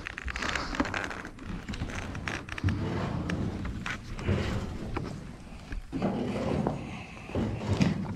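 Rough, uneven rolling noise of a ride over dirt and concrete, with scattered knocks and rattles. A person yells near the end.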